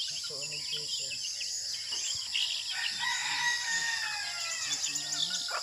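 A rooster crows once, a single long call starting about three seconds in, over a steady high drone of insects.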